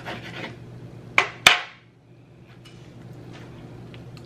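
Knife cutting through a stuffed bell pepper and striking a metal sheet pan: two sharp clinks a little over a second in, the second louder, with a short ring. Faint mouth sounds follow as a forkful is eaten.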